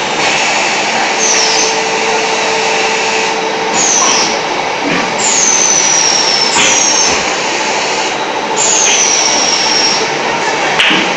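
Terrazzo floor tile making machine running: a loud steady mechanical noise with five high-pitched squeals that fall in pitch, two of them long, and a few short knocks.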